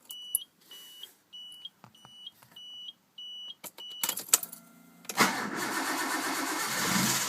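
A car's warning chime beeps repeatedly. Then the starter cranks briefly and the Nissan RB30DET straight-six turbo engine starts about five seconds in and keeps running. It runs with the knock that the owner puts down to a run big-end bearing.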